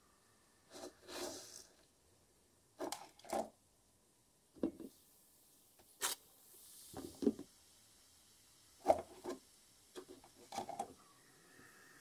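Scattered short knocks and rubbing sounds, about a dozen at irregular intervals, with one sharper click about six seconds in.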